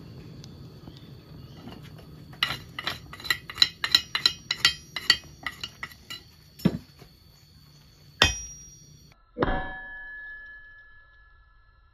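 Hand hammer striking hot axe steel on an anvil: a quick run of about a dozen light blows, roughly four a second, then three separate heavier blows, the last two leaving a clear ringing tone.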